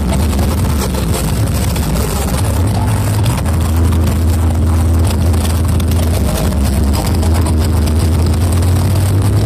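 Large outdoor sound systems blaring together: a heavy, steady bass drone with a dense, distorted noise wash on top, overloading the recording. The bass grows deeper and stronger about three seconds in.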